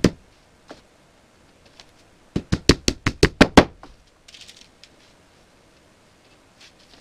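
A quick run of about nine sharp knocks over a little more than a second, starting about two and a half seconds in, from work on the case's shelf parts.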